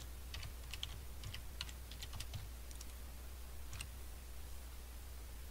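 Computer keyboard typing: a quick run of about a dozen keystrokes over the first two and a half seconds, then a single keystroke near four seconds in, as a password is typed at a prompt and Enter is pressed. A faint steady low hum sits underneath.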